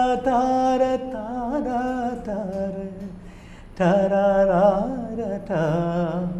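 A man singing unaccompanied: a Carnatic-style film-song melody in long held notes with wavering ornaments. A first phrase fades out about three seconds in, and a louder phrase starts nearly a second later.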